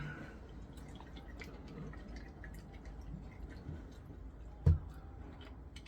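Quiet room with faint scattered small clicks and one short, dull thump about three-quarters of the way through.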